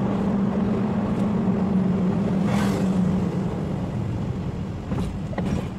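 Car engine and road noise heard from inside the cabin, a steady drone while driving. There is a brief hiss about two and a half seconds in and a couple of faint clicks near the end, and the drone gets a little quieter toward the end.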